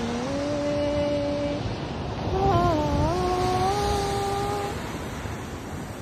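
Wind and surf noise with a low rumble, and over it a few long held notes, each with overtones. The second note dips in pitch and steps back up, then fades out a little before the end.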